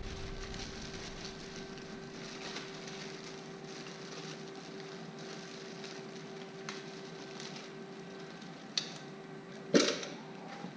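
Faint handling noises of a car's side-marker light being worked on by hand, with small clicks and one sharp knock near the end, over a steady low hum.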